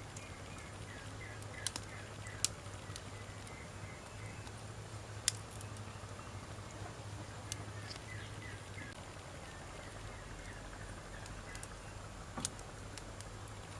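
Wood campfire burning with a steady soft hiss and occasional sharp crackles and pops, about five in all, spaced a few seconds apart. Faint chirping runs underneath.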